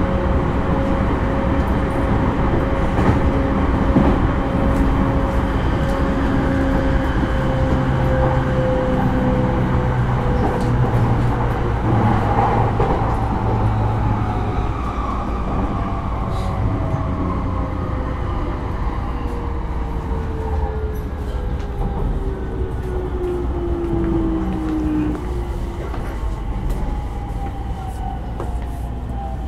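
Running noise inside a JR East E231-0 series commuter train: rumble of wheels on rail under a traction-motor whine that holds steady, then falls steadily in pitch through the second half as the train slows for the next station.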